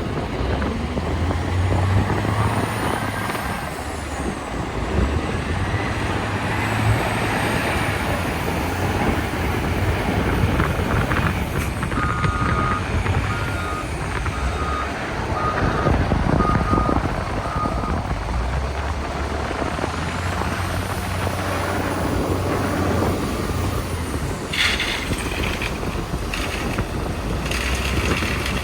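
Caterpillar 966H wheel loader's diesel engine running and revving up and down through a loading cycle, with a high whine rising and falling with the revs. A backup alarm beeps steadily for several seconds midway, and a few clanks sound near the end.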